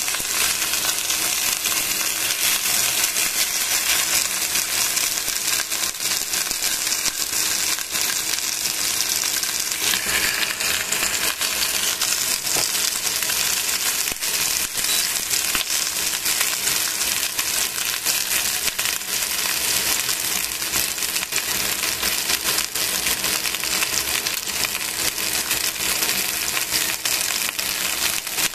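Chicken pieces frying in a stainless steel pan: a steady sizzle with dense fine crackling and spattering, over a faint steady hum.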